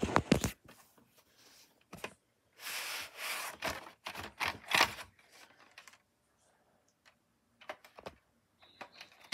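Handling a VHS cassette: a few sharp clicks, then the plastic cassette scraping in two strokes as it slides out of its cardboard sleeve, about three and five seconds in, followed by faint plastic clicks and taps near the end.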